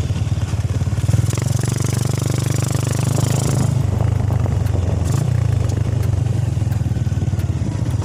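Motorcycle engine running steadily, heard from on board the moving bike, with a high hiss over it from about one to three and a half seconds in.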